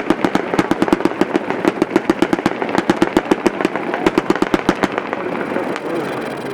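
A 49-shot consumer firework cake firing in rapid succession, about nine shots a second. The shots stop about five seconds in, leaving fainter popping and hiss.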